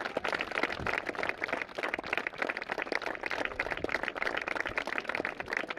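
A group of people clapping steadily.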